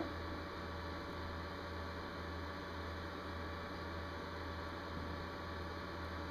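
Steady low electrical hum with a few thin steady tones over a background hiss, with one short click right at the start.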